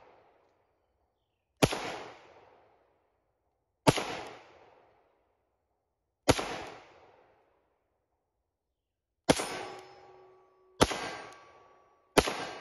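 Six pistol shots from a French Model 1935A in 7.65 French Long. The first three come about two and a half seconds apart, the last three quicker, about a second and a half apart. Each of the last three is followed by the ring of the steel target plate being hit.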